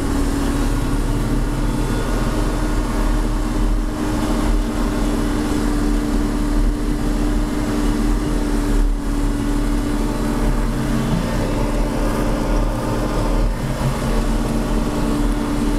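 John Deere 4630 tractor's turbocharged six-cylinder diesel working steadily while pulling a chisel plow, heard from inside the cab: an even drone with a constant hum.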